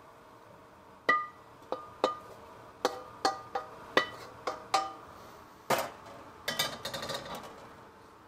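A wooden spatula knocking and scraping against a metal wok while stir-fried food is pushed out onto a plate: about ten sharp knocks with a brief ringing tone, a louder scrape about halfway, then a quick rattle of taps.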